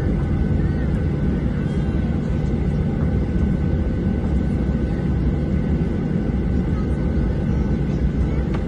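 Boeing 737-800's CFM56-7B jet engines running with a steady low rumble and a faint steady whine above it.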